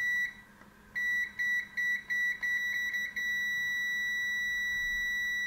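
Kaiweets HT208D clamp meter's continuity buzzer beeping at a steady high pitch: a short beep, then a stutter of rapid broken beeps as the test probe makes and breaks contact, then one continuous tone for about two seconds. The beep signals continuity, a closed low-resistance path between the probes, and it responds quickly.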